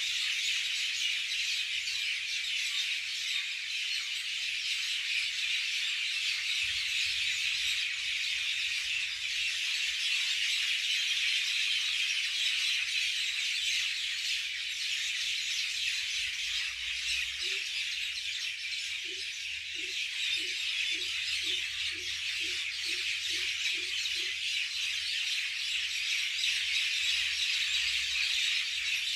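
Many birds chirping and calling loudly at once in an evening chorus. Partway through, a lower note repeats about ten times, roughly two a second.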